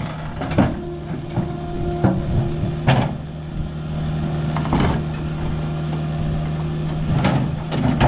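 Mini excavator's diesel engine running steadily under hydraulic load, with a strained tone that comes and goes as it pulls on the overturned backhoe. Sharp metal clanks sound about five times.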